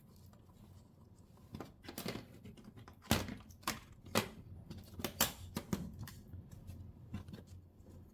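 Scattered light clicks and knocks of a screwdriver, screws and loose plastic and metal parts being handled while a TV is taken apart, the sharpest about three seconds in.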